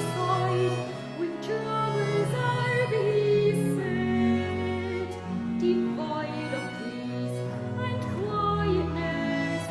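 A consort of viols playing a slow Renaissance consort song in held, interweaving lines, with a solo singing voice.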